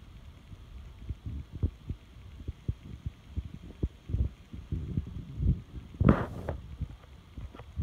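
Handling noise on a handheld phone's microphone: irregular low thumps and rumbling, several a second, with a brief brighter scraping rustle about six seconds in.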